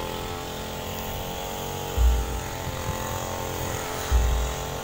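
A motor or engine running steadily, a hum made of several steady tones, with two short low thumps, about two seconds in and again near the end.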